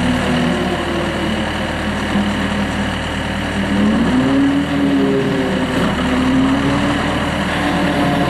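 Skid steer loader engine running steadily under hydraulic load, its pitch sagging a couple of seconds in and rising again as the swing boom cutter attachment is swung and tilted.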